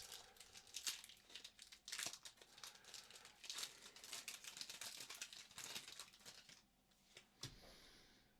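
Foil Pokémon card booster pack being torn open and crinkled: a busy run of crackles that dies away near the end.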